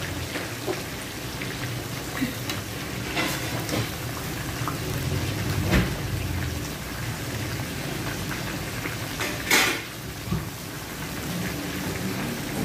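Shrimp deep-frying in a pan of hot oil, sizzling steadily, with a few knocks and scrapes of a metal spatula against the pan; the loudest knock comes about three-quarters of the way through.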